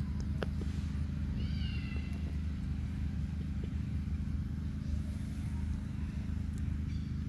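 A monkey gives one short, high-pitched call about a second in, over a steady low rumble and a few light clicks.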